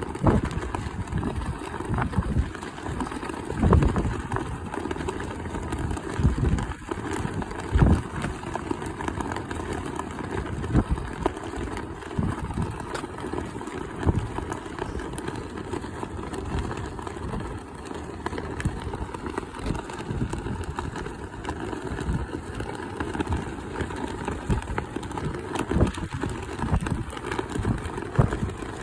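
Strong gusty wind buffeting the microphone: a low rumbling roar that surges and drops irregularly, with sharp gust peaks.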